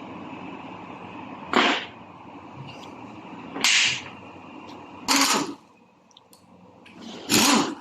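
Four loud, sharp bangs about two seconds apart, from work on a stripped-down Toyota Hilux manual gearbox.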